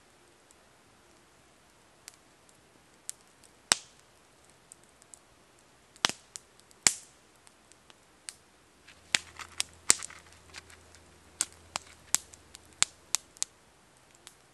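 A tobacco pipe being filled and handled by hand: scattered sharp clicks and small knocks, coming thicker from about nine to thirteen seconds in.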